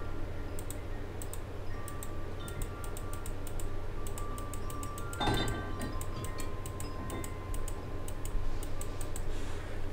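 Light, irregular clicking of a computer keyboard and mouse, like typing, over a steady low hum. A short, louder rustle comes about five seconds in.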